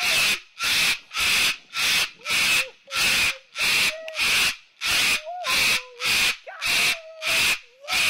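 Medium sulphur-crested cockatoo giving a steady run of harsh, hissing rasps, about two a second, with a faint wavering tone between them.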